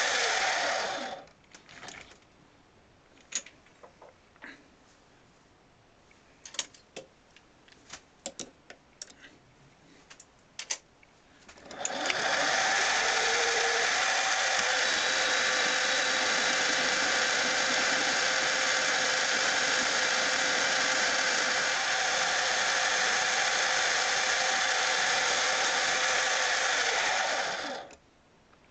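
Metal lathe running, shutting off about a second in. Then a quiet stretch with scattered small clicks and knocks, and the lathe starts again at about twelve seconds and runs steadily until it stops near the end.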